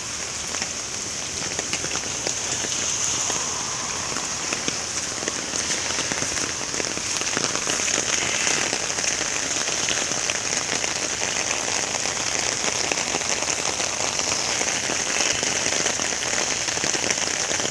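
Steady rain falling, a dense even patter of drops on flooded, muddy ground.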